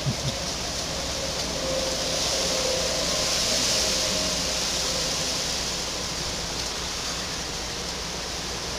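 Steady hiss of background noise with no distinct events, a little louder for a few seconds in the middle.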